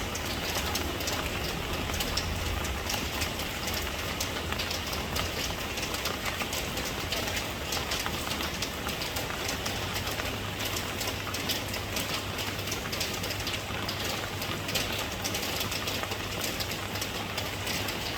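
Steady rain falling: a constant hiss with a dense patter of drops, over a low rumble.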